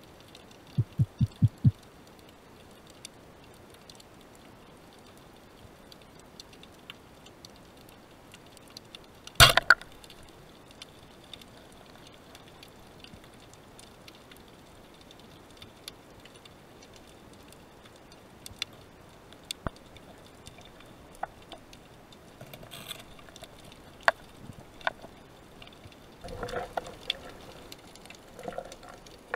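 Underwater recording of a band-powered speargun being fired: one sharp, loud snap about nine seconds in as the rubber bands release and drive the shaft into a gilthead sea bream. Faint scattered clicks run throughout, with a quick run of five low knocks about a second in and a rough rustling near the end as the speared fish is handled on the shaft.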